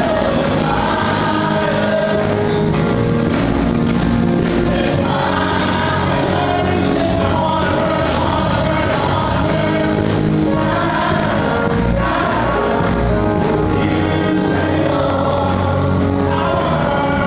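Live gospel praise and worship music: a group of singers, amplified, backed by a live church band, played steadily.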